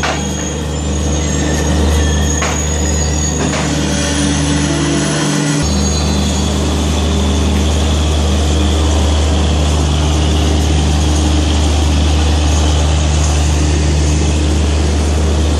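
Passenger train coaches rolling past close by as the train pulls into the station, a steady loud rumble of wheels on rail with a low hum. A thin high squeal, typical of wheels and brakes, sounds over the first half, with a couple of clicks.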